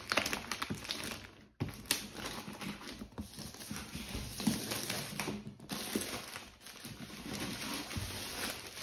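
Clear plastic shrink-wrap crinkling and crackling as it is peeled and pulled off a cardboard box, with a brief pause about a second and a half in.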